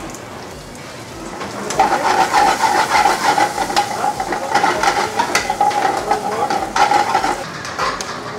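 A metal utensil stirring and scraping food in a cooking pan with sizzling, starting about two seconds in. A steady whine sounds along with it and stops about a second before the stirring eases.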